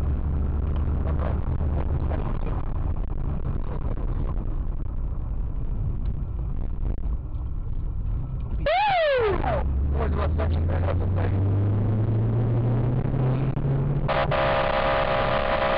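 Car driving, heard from inside the vehicle: steady engine and road noise. About nine seconds in comes a short falling tone. After it the engine note rises slowly as the car speeds up, and a steady high tone is held for about two seconds near the end.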